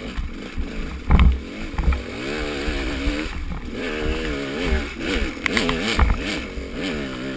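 A small motorcycle engine running while ridden, its pitch wavering up and down as the revs change, with low wind rumble and scattered sharp ticks on the microphone.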